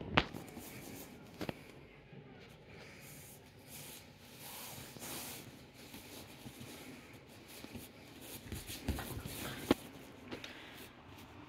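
Quiet rustling of a small American Hairless Terrier moving about on a couch and nosing at bare feet, with a few sharp clicks, the loudest just after the start and about ten seconds in.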